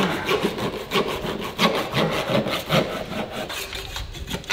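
Hand sawing along the seam between a sailboat's keel and hull, cutting through the MS polymer sealant of the keel joint to free the keel, in rasping back-and-forth strokes about two a second.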